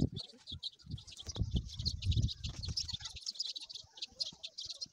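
Small birds chirping continuously in high, rapid calls. Low rumbling thuds come and go through the first half.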